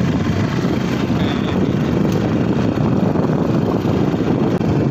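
Motorcycle on the move: engine running under wind buffeting the microphone, a steady low rumble.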